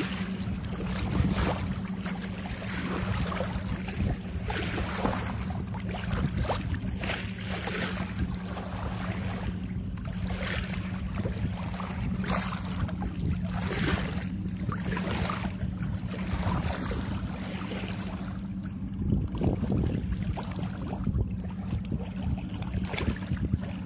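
Water rushing and splashing along the hull of a moving sailboat, in irregular surges as the bow wave breaks. Under it runs a steady low hum.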